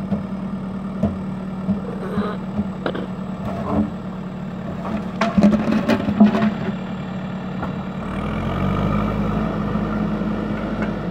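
JCB backhoe loader's diesel engine running steadily, with a cluster of sharp knocks and clatter around the middle. About two-thirds of the way through the engine revs up and runs louder and heavier as the loader moves.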